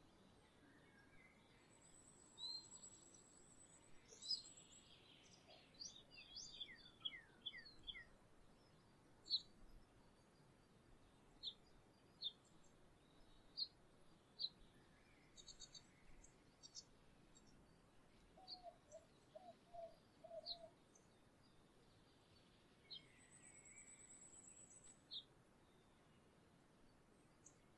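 Small songbirds calling faintly: scattered short high chirps, a quick run of falling notes, and twice a high buzzy trill.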